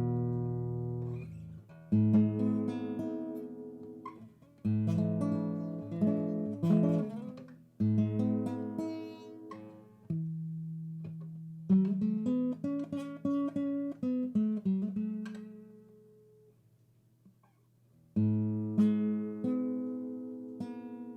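Background music: acoustic guitar strumming chords that ring out and fade, with a run of quickly picked notes in the middle and a brief lull about two-thirds of the way in.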